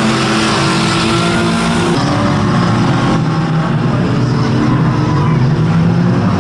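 Several pre-1980 banger racing cars' engines revving hard and steadily, their wheels spinning as the cars push against each other in a pile-up. The engine sound changes abruptly about two seconds in.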